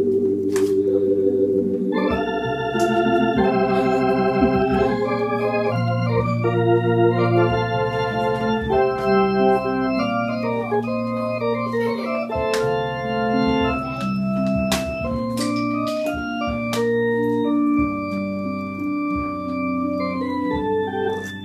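Vintage 1970s Hammond organ played as a slow ballad: held chords over a bass line, with a higher melody entering about two seconds in.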